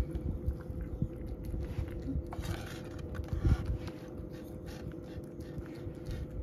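A domestic cat eating wet cat food from a bowl: irregular small wet chewing and lapping clicks, with one louder knock about three and a half seconds in.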